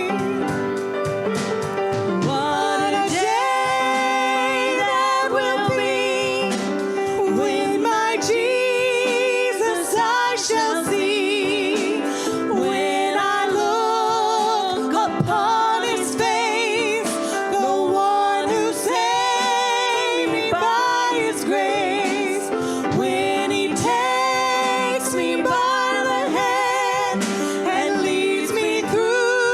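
Gospel hymn sung with vibrato over instrumental accompaniment.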